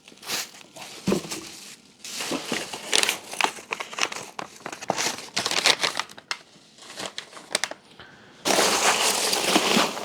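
Polystyrene packing peanuts and foam chunks being scooped and handled out of a shipping box: irregular rustling and crinkling that turns denser and louder near the end.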